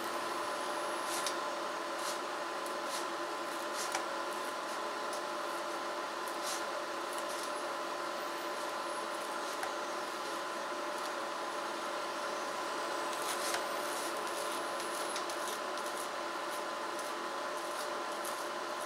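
Knife scoring a cooked masa sope on a wooden cutting board: quiet scraping and cutting with a few small clicks, over a steady hum.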